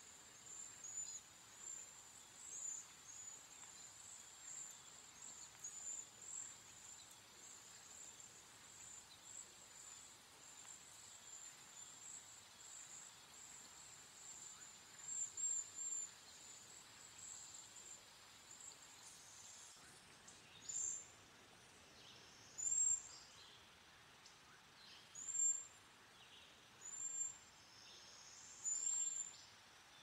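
Cedar waxwings giving their very high, thin calls: a continuous run of overlapping short notes at first, then, after about twenty seconds, single louder calls roughly every two seconds.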